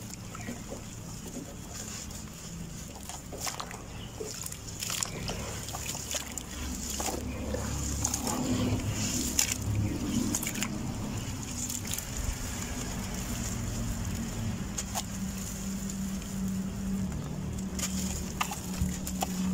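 Hands crumbling soft red dirt into a tub of water and squeezing the mud: wet sloshing and splashing, with crumbs pattering into the water. It is busiest and loudest around the middle.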